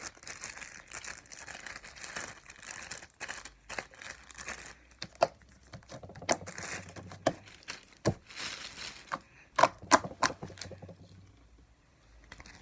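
Plastic baggie crinkling as slime is handled, with many scattered sharp clicks, quieting near the end.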